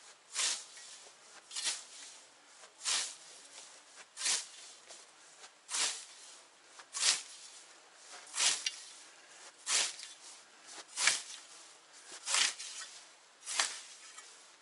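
A hand scythe swishing through tall grass in steady mowing strokes, eleven swishes a little over a second apart.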